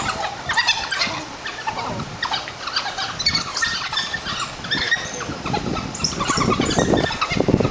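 African wild dogs squealing and chirping in many short, overlapping high-pitched calls as they rough-house in play-fighting.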